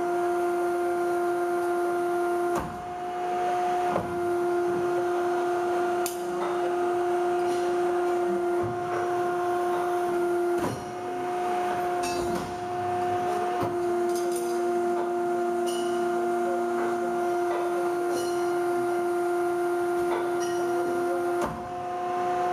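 Hydraulic CNC tube bender running a bend cycle: the steady hum of its hydraulic power unit, with scattered clicks and knocks from the moving tooling and a few brief dips in level as the load changes.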